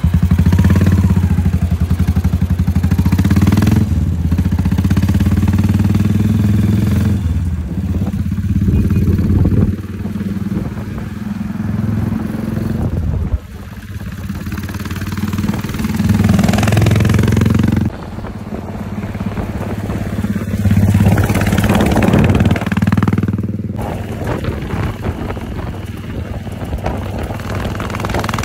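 Custom Yamaha SR400's single-cylinder four-stroke engine running under way as the bike is ridden, a steady pulsing exhaust note. Its loudness and pitch jump abruptly at several points.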